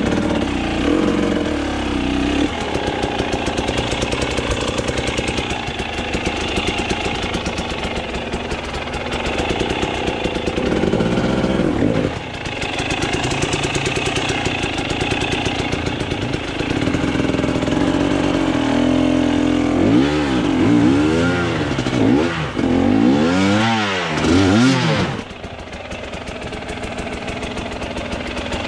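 KTM enduro motorcycle engine revving unevenly and continuously. About twenty seconds in it gives several quick rev blips that rise and fall in pitch, then drops back to a lower, steadier idle near the end.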